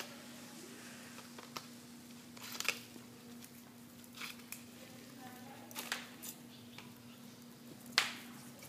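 A rabbit nosing and tipping a small black plastic plant pot on a tiled floor: scattered light knocks and scrapes of the pot against the tiles, the sharpest about eight seconds in, over a faint steady hum.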